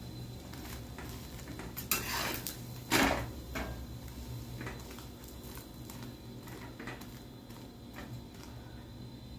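Slotted metal spatula scraping and knocking on a flat iron tawa as a toasting sandwich is turned over: a scrape about two seconds in, a loud clank about three seconds in, then a few lighter taps.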